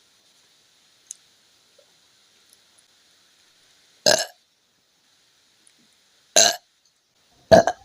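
A woman burping three times: short, loud burps, the second about two seconds after the first and the third a second after that, brought up by gulping a fizzy drink.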